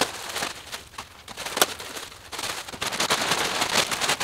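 Plastic wrapping crinkling and rustling, with sharp crackles, as plastic-wrapped metal boat frame parts are handled and unwrapped. The sound comes in two spells with a quieter lull in the middle.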